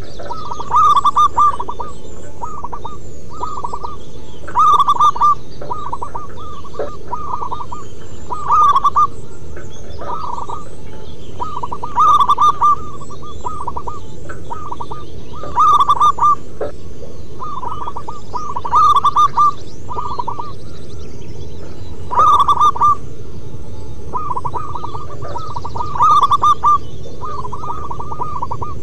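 Zebra doves (perkutut) cooing: short clusters of quick staccato coo notes, a loud phrase about every three and a half to four seconds with softer phrases between, over a steady low background noise.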